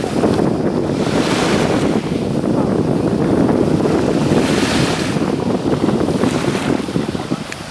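Wind blowing over the camera microphone, swelling and easing in gusts, with light surf washing onto a pebble beach beneath it. The wind eases a little near the end.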